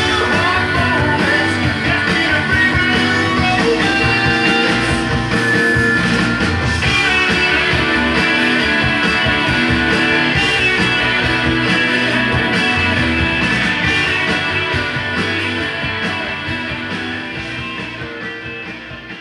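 Rock music with guitar playing from a vinyl record on a Kenwood KD-4100 direct-drive turntable, fading out over the last few seconds.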